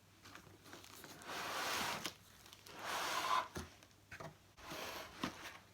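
Packaging being handled and unwrapped: two longer rustling, tearing scrapes about a second and three seconds in, then several short sharp knocks.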